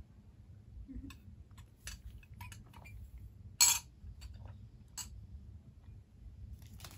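Scattered small clicks and clinks as a metal hair-tinsel hook tool is handled, with one louder clink about three and a half seconds in.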